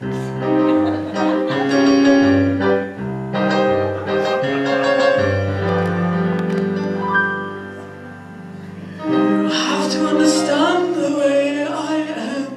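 A song performed live: held instrumental notes over a low bass line, then a singing voice with vibrato from about nine seconds in.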